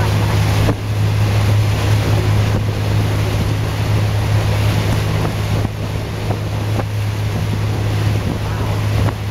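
Motorboat engine running at a steady towing speed, a constant low drone, under the rush of churning wake water and wind buffeting the microphone.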